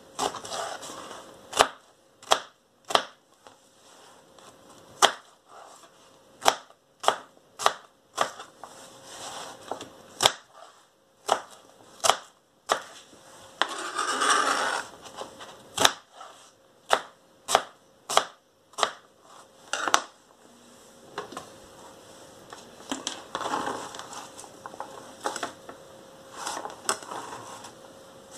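Kitchen knife chopping Belgian endive on a cutting board: sharp, irregular knocks of the blade meeting the board, roughly one a second, with a longer, noisier stretch about halfway. In the last third the knocks thin out into softer rustling as the cut pieces are handled.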